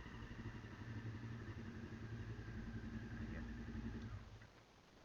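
Motorcycle engine idling steadily, then dying away about four seconds in.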